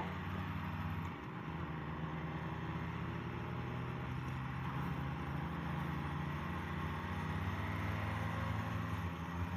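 Motorcycle engine running at a steady speed while riding, with a steady rush of road noise and a brief dip about a second in.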